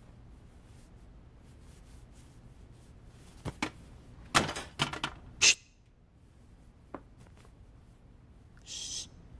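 Rustles and light knocks of a padded jacket being handled and put on, loudest about halfway, with a brief hiss near the end.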